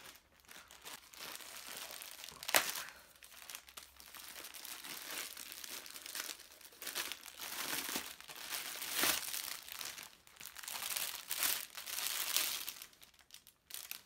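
Packaging crinkling and rustling as it is handled, with a few sharper crackles, the loudest about two and a half seconds in.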